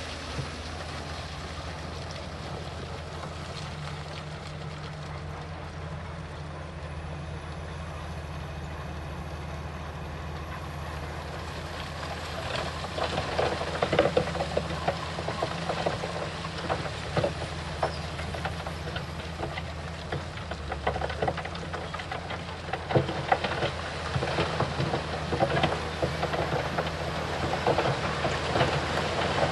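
Bulldozer diesel engine running steadily with a low hum. From about twelve seconds in, loud irregular clanking and rattling of steel tracks and rock joins it.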